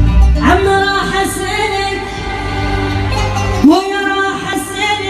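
A singer holds long, ornamented notes of a mawwal over instrumental backing. Each note slides up into pitch: one about half a second in, another just before four seconds in.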